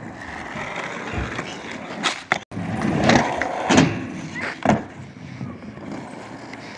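Skateboard wheels rolling over rough concrete, with several sharp board clacks a couple of seconds in, the loudest a little past halfway.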